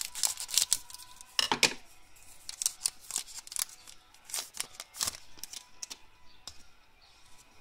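Foil wrapper of a 2013 Panini Totally Certified NFL trading-card pack being crinkled and torn open by hand, in several quick bursts of sharp crackling over the first five seconds.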